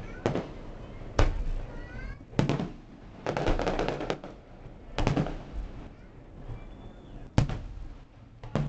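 Aerial fireworks shells bursting in an irregular series of sharp bangs. Each bang trails off into a rumble, and there is a rapid cluster of reports about three to four seconds in.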